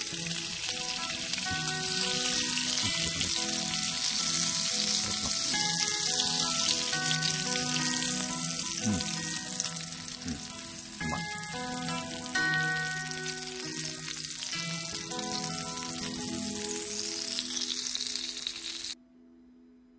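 Food sizzling in a hot pan, a steady hiss under background music with held notes. The sizzle cuts off suddenly near the end, leaving the music.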